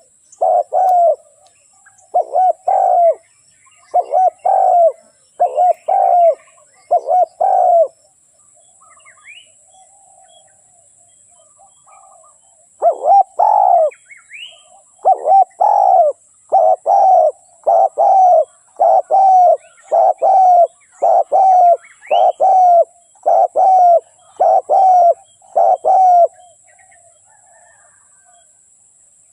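Spotted doves (tekukur) cooing: a long run of evenly repeated low coos, about one a second, breaking off for about five seconds a little over a quarter of the way in and then resuming, played as a lure call to get a reluctant tekukur to call. Faint chirps of small birds come between the coos.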